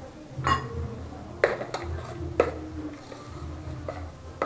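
Metal spoon stirring oats in a stainless steel pot, clinking against the pot's side about four times.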